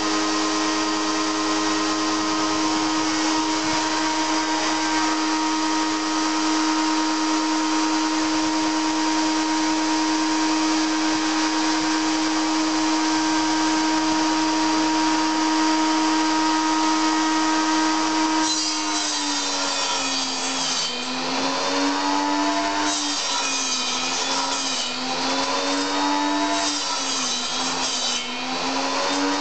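Schwarzbau TS250A 2500-watt table saw running at a steady pitch with no load. From about 18 seconds in it is cutting wood, and its whine drops and recovers several times as the blade takes the load of each cut.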